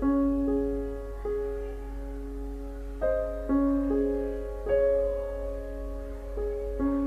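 Slow, soft background piano music: single sustained notes struck every second or so and left to ring, over a steady low hum.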